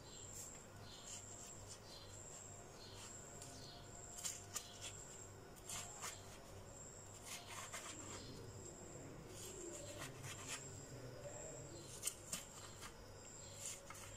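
A kitchen knife cutting into the flesh of a half watermelon on a wooden board, scoring it into cubes: faint, scattered light clicks and taps as the blade meets the flesh, rind and board. A faint high chirp repeats steadily underneath.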